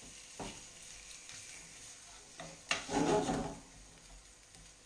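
Wooden spoon stirring and scraping chopped onion and 'nduja around a frying pan over a faint sizzle, with one longer, louder scrape about three seconds in.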